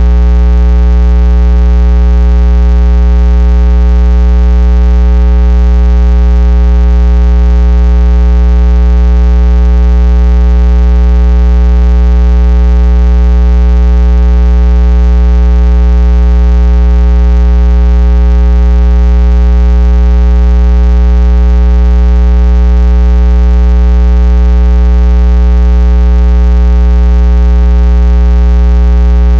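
Loud, steady electrical mains hum with a buzzy stack of overtones, unchanging throughout.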